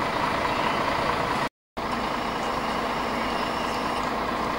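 City bus engine idling at the kerb, a steady running noise. The sound drops out briefly about a second and a half in.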